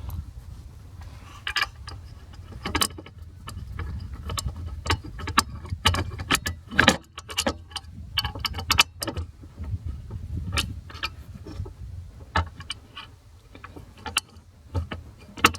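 Irregular clicks and small knocks of hand tools and screws being handled while the restraints control module is screwed into place, over a low steady hum.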